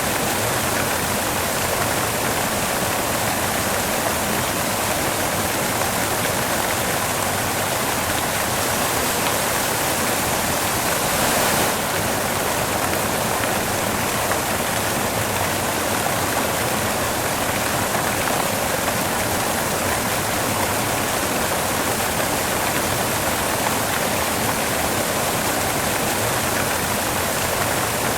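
Steady white noise: an even, unchanging hiss across all pitches. It gets slightly louder for a moment about eleven seconds in, then drops back.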